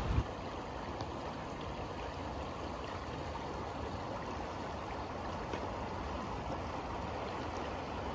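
River water flowing steadily, a continuous even sound of the current. A brief low bump at the very start.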